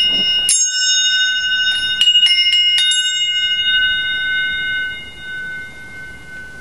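Metal hole-saw blades worn on the fingers, clinked together so that they ring like small bells with several clear high tones. There is one strike, then a quick run of about five more between roughly one and a half and three seconds in, and the ringing dies away by about five seconds in.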